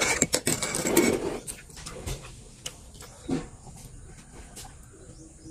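Metal spoon stirring coffee in a mug, clinking and scraping against the sides for about the first second, then a few light taps.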